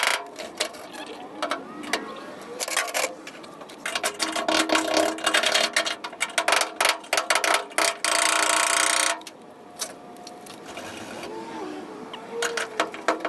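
Drill with a spot weld cutter working through spot welds in sheet steel, chattering and clicking as the teeth catch. It runs most steadily from about four to nine seconds in, then stops, leaving scattered metal clicks.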